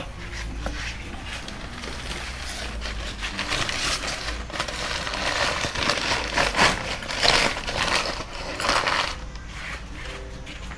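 Irregular metallic clinks, knocks and scrapes from exhaust parts and hand tools being handled, busiest in the middle and easing off near the end.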